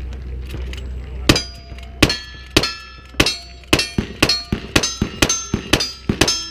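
Rifle firing a rapid string of shots at steel targets, each shot followed by the ring of a struck steel plate. About a dozen shots start about a second in, spaced apart at first and then quickening to three or four a second.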